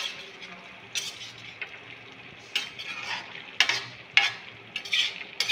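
Metal spatula stirring and scraping potato and cauliflower sabzi in a metal kadhai, about five scraping strokes against the pan over a soft, steady sizzle of frying.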